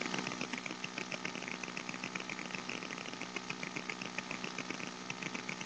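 Faint, rapid crackling and ticking of thin wires and component leads being twisted together by hand, over a steady low electrical hum.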